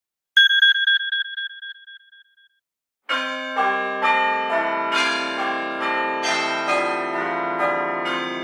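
Two phone ringtone sounds in turn: a short, high, trilling ring that fades over about two seconds, then, about three seconds in, a ringtone of many overlapping bell-like chimes that keep being struck.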